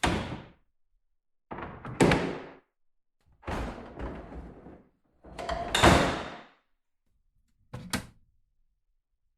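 A series of five separate door sounds, doors swinging and shutting with a heavy slam, each dying away before a gap of silence. The last one, near the end, is short and sharp.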